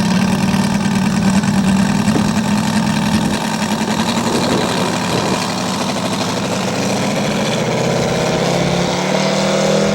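Radio-controlled scale model aircraft engine running steadily, its pitch rising slightly near the end.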